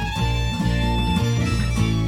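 Background music with fiddle and guitar over a steady beat.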